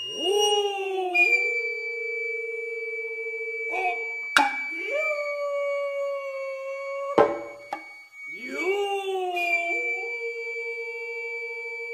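Traditional Japanese stage music: sharp hand-drum strikes every few seconds, with long held vocal cries between them that slide up into a steady pitch.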